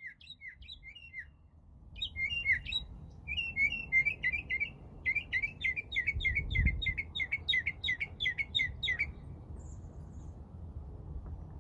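Northern mockingbird singing: a few short chirps, then varied phrases that settle into a fast run of one repeated note, about three or four a second, stopping about nine seconds in.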